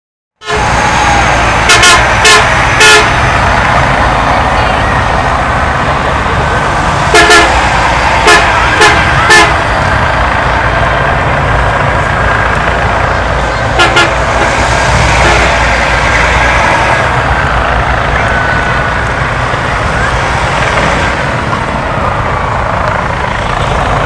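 Charter buses pulling away with a steady low engine rumble, their horns giving short toots in groups: three near the start, four around seven to nine seconds in, and two around fourteen seconds in.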